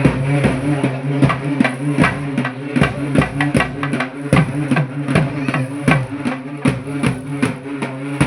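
Music of drums beaten in a steady fast rhythm, about three or four strikes a second, over a held low drone note.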